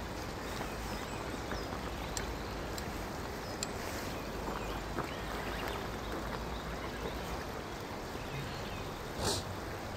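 Steady rushing outdoor background noise with a few faint ticks, and a short, louder rush near the end.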